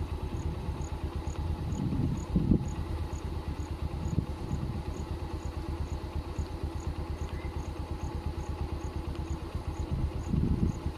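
A vehicle engine idling steadily close by, a fast even low pulsing.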